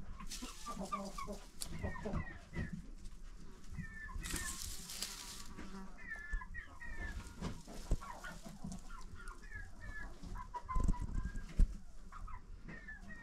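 Poultry calling in short, high, falling chirps, in pairs and threes. A burst of straw rustling about four seconds in, from the sitting turkey hen working the nesting straw over her back, and a few low thumps near the end, the loudest sounds.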